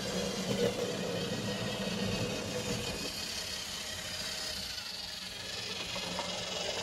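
Rebuilt Lima Class 60 model locomotive running steadily on the track, its motor and gears giving a continuous whine: the typical Lima squeal, which persists despite a new motor and freshly greased gears.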